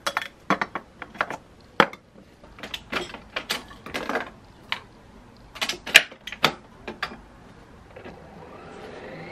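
Coffee capsules clinking into a glass jar, then the clicks of a capsule coffee machine's lid being opened and shut and its button pressed. A low hum rises near the end as the machine starts up.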